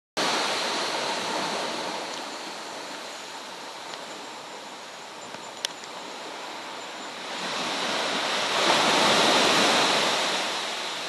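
Surf breaking and washing up the beach, a steady wash that swells to a peak about nine seconds in and then eases off. A faint steady high tone runs underneath, and there is one sharp click a little after halfway.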